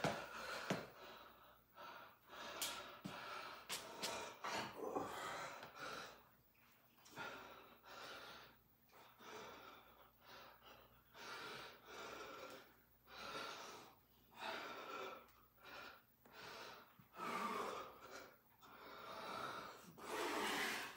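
A man breathing hard and gasping through a set of pull-ups, with short forceful breaths about once a second, the breathing of a tired back straining through each rep.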